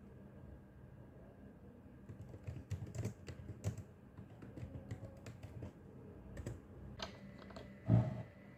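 Typing on a keyboard: light, irregular key clicks, with one louder low thump near the end.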